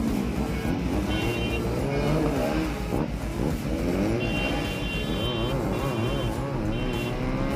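Several motorcycle engines revving and pulling away together, their pitch rising and falling, with repeated short high beeps.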